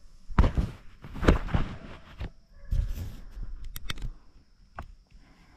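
Handling noise from a phone camera being set up by hand: irregular rubbing and rumbling bursts, with a couple of sharp clicks near the end.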